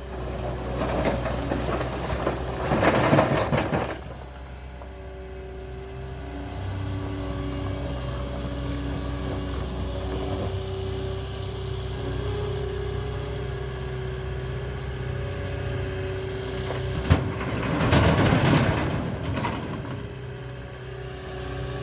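A heavy engine running steadily at idle, with two stretches of loud rushing, hissing noise over it: one in the first few seconds and another near the end.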